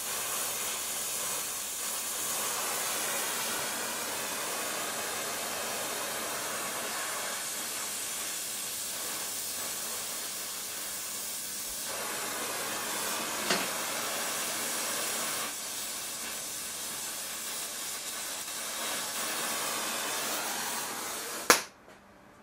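Gas welding torch hissing steadily while tack-brazing the steel legs of a bicycle rear carrier. Near the end it stops with one sharp pop as the flame is shut off.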